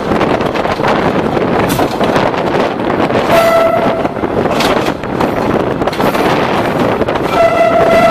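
DEMU commuter train running, a steady noise of wheels on track with wind on the microphone. Its horn sounds twice in short single-pitch toots, about three seconds in and again near the end.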